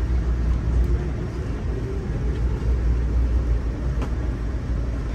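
Steady low rumble of a moving Amtrak passenger coach heard from inside the car, its wheels rolling on the rails.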